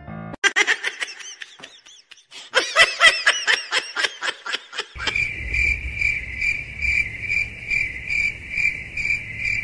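Rapid high-pitched chirps in two quick runs, then a steady high trill that pulses about twice a second over a low hum, like a chirping insect.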